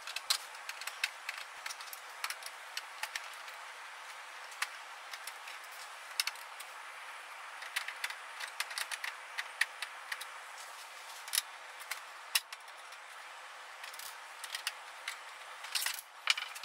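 Irregular small clicks and ticks of a screwdriver backing screws out of an Epson R3000 printer's plastic rear casing, with a few clicks as the loose screws are set down on a wooden desk.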